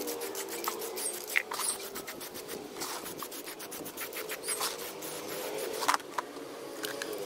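A plastic storage box being handled and shifted about on cardboard: a run of short scratchy rubs and clicks.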